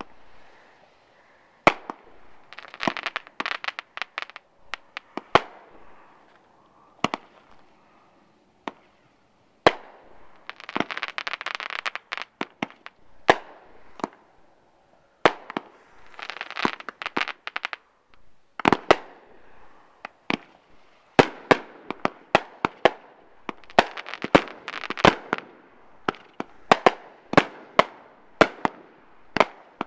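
Aerial fireworks shells and cakes bursting overhead, a string of sharp bangs. Some come singly a second or two apart and some in fast runs, with several stretches of dense crackling.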